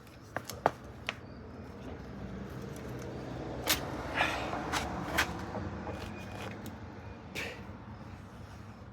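Scattered metallic clicks and knocks from handling the bicycle's rear wheel, chain and frame while fitting the wheel back into the frame's dropouts: a few light clicks early on, then a cluster of sharper knocks in the middle, over a low steady background hum.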